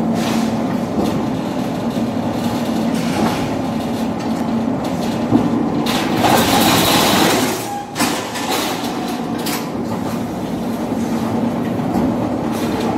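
Sheet-metal guillotine shear running with a steady hum and rattling clatter. About six seconds in, a louder, harsher rush of noise lasts nearly two seconds and then drops off sharply.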